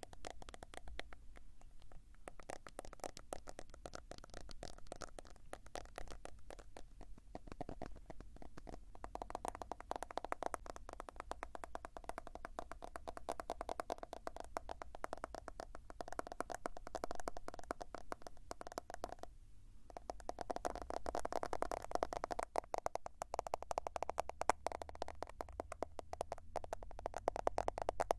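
Rapid, continuous tapping of fingertips or nails on a smartphone, many light taps a second, with a short pause about two-thirds of the way through.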